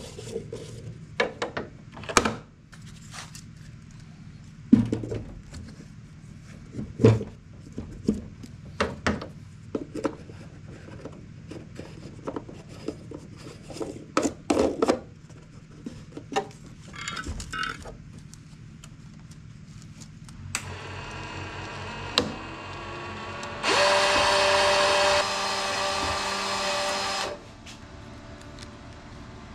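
Clicks and knocks of a new spool of wire being loaded into a MIG welder. About two-thirds of the way through, a steady motor whine starts, much louder for about three and a half seconds near the end: the welder's wire feed motor running wire through to the gun.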